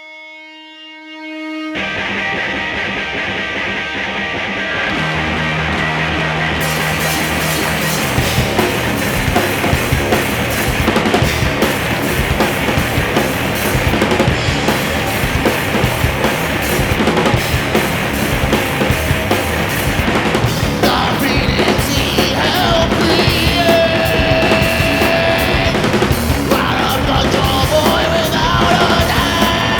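Heavy rock band playing loud: distorted guitars, bass and a drum kit come in together about two seconds in, after a single held note. A vocal line joins about twenty seconds in.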